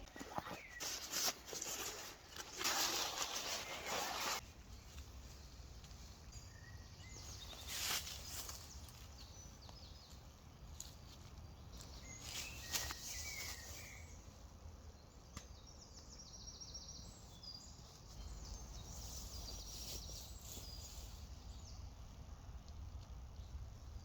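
Rustling and footsteps through woodland undergrowth for the first few seconds, with another brief rustle about eight seconds in, then outdoor ambience with birds chirping now and then.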